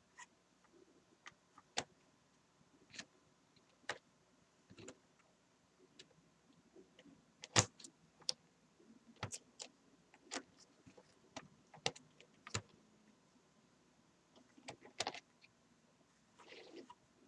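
Model train locomotive running on the layout track: a faint steady motor hum with scattered, irregular sharp clicks from its wheels on the rails.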